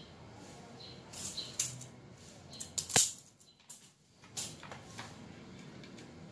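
Handling noise from working on motorcycle wiring: short rustles and clicks of wires and plastic parts, with one sharp click about three seconds in.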